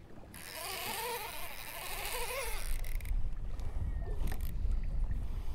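Baitcasting reel's drag buzzing as a hooked fish pulls line off, a hiss with a wavering whine that stops abruptly about three seconds in. Wind rumble on the microphone and a few handling knocks follow.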